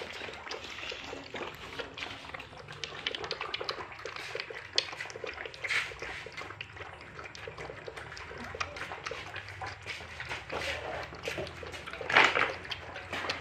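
A litter of month-old puppies eating together from a stainless steel bowl, with a busy run of wet lapping and chewing sounds and a louder short noise near the end.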